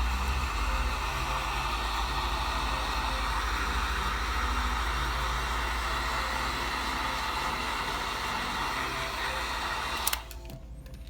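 Heat gun running steadily, its fan blowing hot air, stopping suddenly about ten seconds in.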